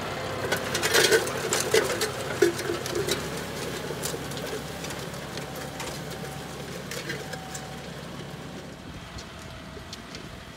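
John Deere 5045E tractor's three-cylinder diesel engine running steadily, with metal clanks and rattles in the first few seconds. It grows fainter as the tractor moves off pulling a disc harrow.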